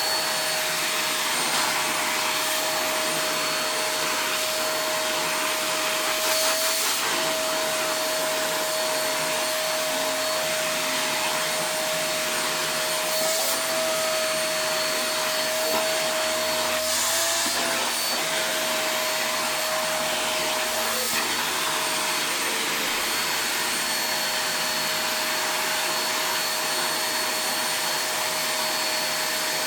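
Vacuum cleaner running steadily, its motor whine holding one pitch under a constant rush of air. A few times the whine wavers briefly and the hiss swells for a moment.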